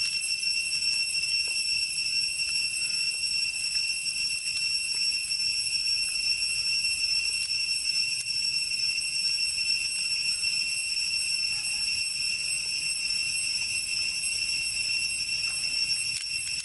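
Insects droning: a steady, high-pitched whine that does not change.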